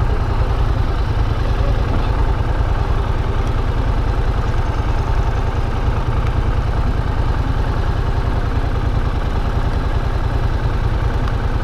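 Yamaha MT-07's parallel-twin engine idling steadily, with an even low throb of firing pulses.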